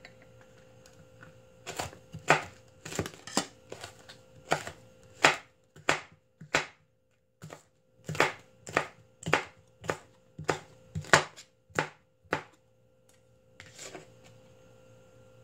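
Chef's knife slicing a green bell pepper into long strips on a cutting board: a run of sharp knocks, about two a second, as the blade hits the board. The knocks begin a couple of seconds in, pause briefly midway, and stop shortly before the end.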